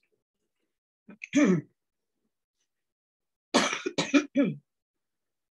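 A woman clearing her throat: one short clearing about a second in, then three quick ones in a row a little past the middle.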